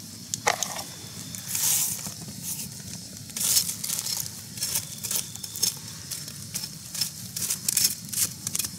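Irregular rustling and crinkling: a quick run of short, sharp crackles, thicker from about halfway on, as of something crisp being handled close to the microphone.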